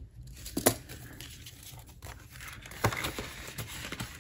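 Paper banknotes and cash envelopes being handled, rustling as they are pulled out and shuffled, with a couple of sharper paper snaps about a second in and near three seconds.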